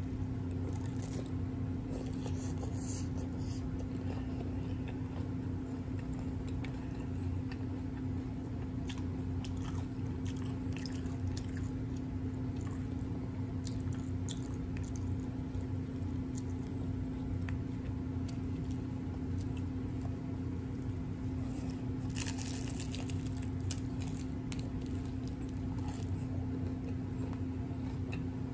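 A person chewing a crisp hard taco shell with the mouth close to the microphone, with short crunches scattered through, a thicker run of them about three-quarters of the way through. A steady low hum runs underneath.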